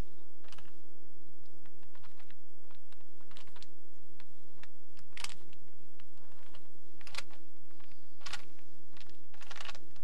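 Plastic Rubik's Cube clicking as its layers are twisted by hand, in irregular runs of quick clicks with short pauses between them.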